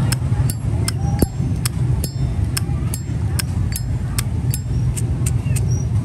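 Brass Zippo lighter lid being flicked open and snapped shut over and over: sharp metallic clicks at about two and a half a second, some with a brief high ring. A steady low rumble runs underneath.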